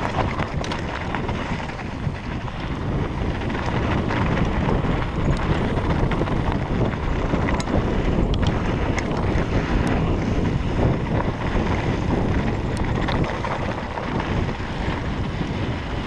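Wind buffeting the microphone while riding a mountain bike on a dirt trail, a steady loud rush with tyre noise on the ground and a few faint clicks and rattles.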